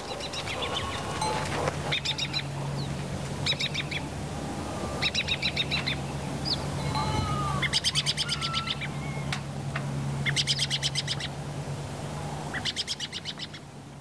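Budgerigars chirping in short bursts of rapid, high chatter every second or two, over a low steady hum.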